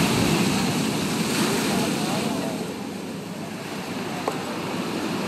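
Sea waves breaking against a concrete seawall: a wave crashes at the start, then the surf and foam wash along the wall, easing off after a couple of seconds.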